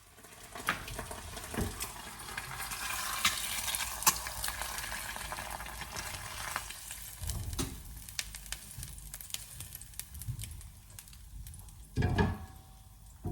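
Food sizzling and crackling in a hot frying pan, loudest for the first six seconds or so and then dying down; a louder knock near the end.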